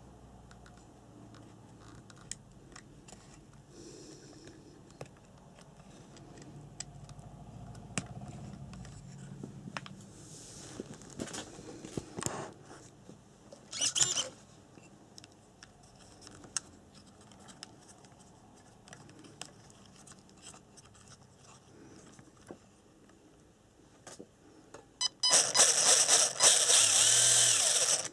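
Small clicks and rattles from wiring being handled, a short loud burst about 14 seconds in, then near the end an Injora 550 12-turn brushed motor on a Hobbywing 1060 ESC whirring for about three seconds, its pitch changing as the throttle varies.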